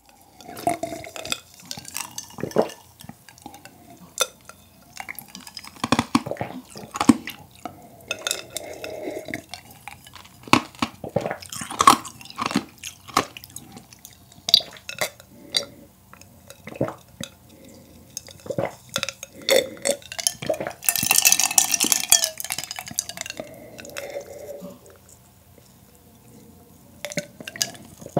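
Close-miked drinking from a cup: repeated gulps and swallow clicks, with the cup knocking lightly, and one longer hissing sip about three quarters of the way through.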